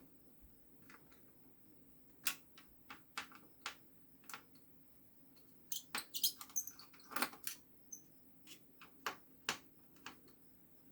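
Scattered light clicks and taps of an all-in-one PC's plastic and metal casing parts being handled, with a busier run of clicks about six to seven and a half seconds in.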